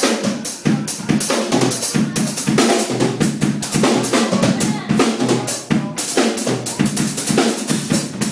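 Drum kit played solo: fast, dense strikes on snare and bass drum with cymbals ringing over them.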